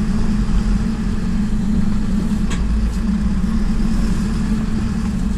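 Motor vehicle engine running steadily, a low drone with road rumble beneath it.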